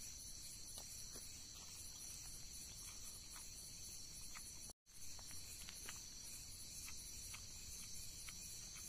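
Crickets chirping in a steady, continuous high trill, with faint scattered clicks of a spoon against a metal pan. The sound cuts out completely for a moment just before halfway.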